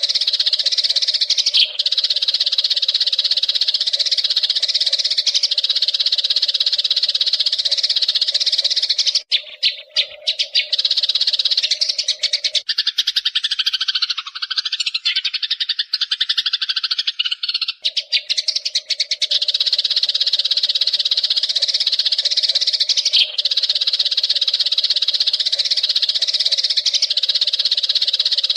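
Eurasian tree sparrows chattering densely and without a break. Partway through, the calls drop to a lower, warbling pattern for about five seconds, then the high chatter resumes.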